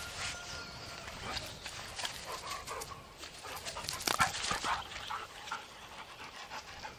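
Two Belgian Malinois playing together, making short scattered dog vocal sounds, loudest about four seconds in.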